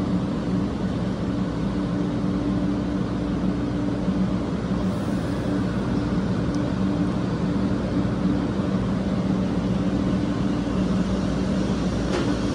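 JR West 500 series Shinkansen train running beside the platform with a steady low mechanical hum of two tones over a rumbling noise, as it starts to pull away.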